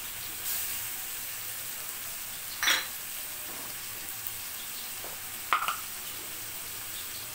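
Snakehead fish and spice paste sizzling steadily in a metal karahi over a gas flame. A metal utensil clinks sharply against the pan twice, about a third of the way in and again just past the middle.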